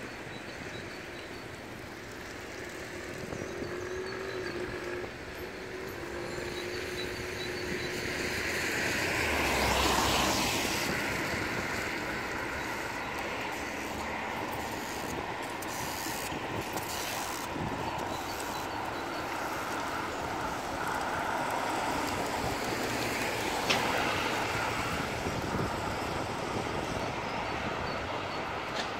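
City street traffic noise, with one vehicle passing close about ten seconds in, its sound swelling and then fading. A single sharp click comes near the end.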